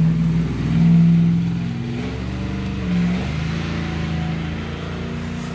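Road traffic: a vehicle's engine going by, loudest about a second in and then fading slowly.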